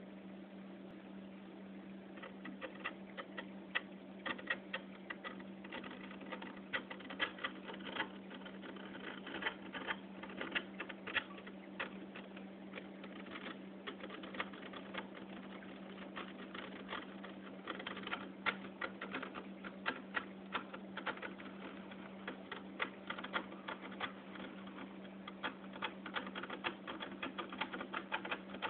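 Magnetic aquarium glass cleaner's dull steel blade scraping coralline algae off the glass: a rapid, irregular crackle of clicks that starts about two seconds in. A steady low hum runs underneath.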